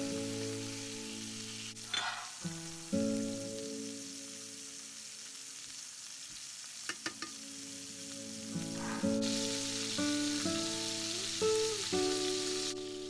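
Strip loin steaks sizzling in oil in a ceramic frying pan, with a few light clicks; the sizzle grows louder about nine seconds in as butter goes into the pan. Background music with plucked notes plays over it.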